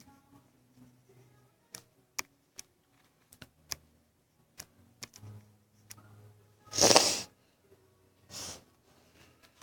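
A person who is sick sneezes once, loudly, then gives a short sniff about a second and a half later. Scattered light clicks and taps sound throughout.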